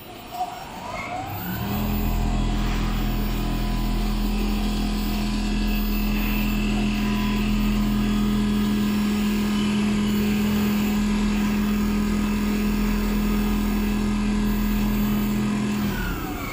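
Richpeace large-format automatic sewing machine with a rotating sewing head running. It winds up about a second and a half in, runs with a steady mechanical hum, and winds down near the end.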